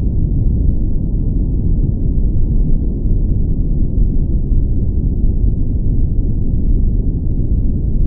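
Steady, deep rumbling noise, muffled with no high end and no separate events: an ambient relaxation noise bed of the brown-noise kind.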